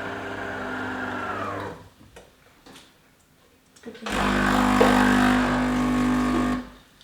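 De'Longhi Magnifica ESAM4200 bean-to-cup coffee machine working through its brew cycle: a motor hums for under two seconds and winds down, then after a short pause the water pump buzzes loudly and steadily for about two and a half seconds, pushing water through the coffee.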